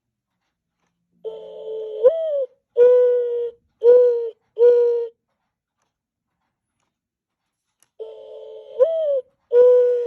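Mark Feldstein and Associates 25th anniversary singing bird clock playing its recorded mourning dove song for the 7 o'clock hour: a long coo that swoops up, then three short coos. The phrase starts over about eight seconds in.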